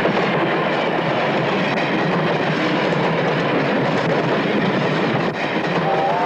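Freight train of wagons running along the rails, a steady noise of wheels on track.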